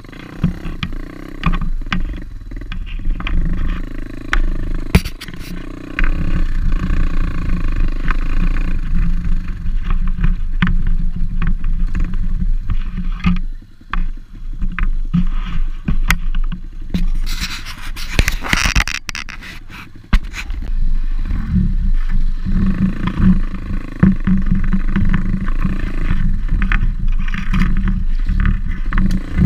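Pit bike engine running and being ridden off-road, with many knocks and rattles over rough ground and a brief hissing rush about two-thirds of the way through.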